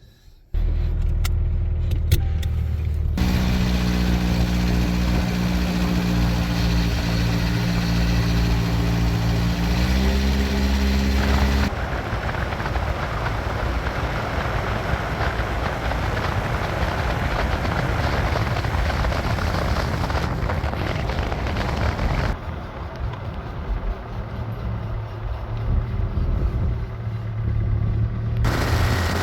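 Truck engine starting, then running with a steady hum that steps up in pitch about ten seconds in, followed by the noise of the truck driving, which changes abruptly a couple of times.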